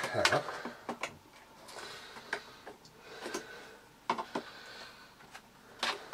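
Screwdriver clicking and scraping against the plastic housing of a Miele S2111 cylinder vacuum cleaner while it is being probed and prised apart. Irregular light clicks and knocks, several close together at the start and then single ones about a second apart, with faint scraping between them.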